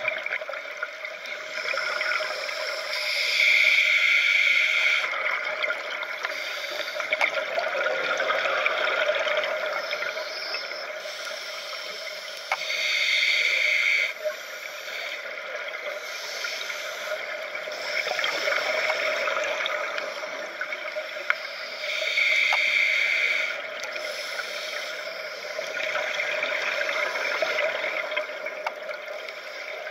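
Scuba divers' exhaled breath bubbling out of their regulators underwater: three loud bubbling bursts about nine seconds apart, with a steady bubbly gurgle and hiss between them.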